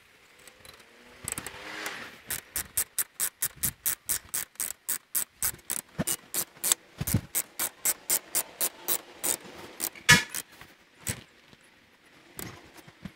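Ratchet-type wrench clicking steadily, about four clicks a second, as it runs down the outer tie rod end's knuckle nut on a 2002 Chrysler PT Cruiser. About ten seconds in comes one louder, longer click as the wrench reaches the 45 ft-lb torque setting, then a few loose clicks.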